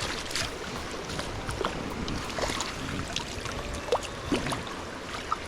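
Stream water running steadily, with a few short sharp sounds over it, the loudest about four seconds in.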